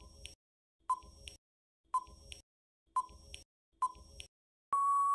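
Quiz countdown timer sound effect: five short electronic beeps about a second apart, then one longer steady beep near the end as the count runs out.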